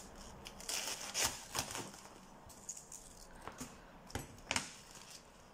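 Cleaver chopping cabbage leaves on a plastic chopping board: irregular sharp taps, a cluster in the first couple of seconds and two more about four seconds in, with faint leaf handling between.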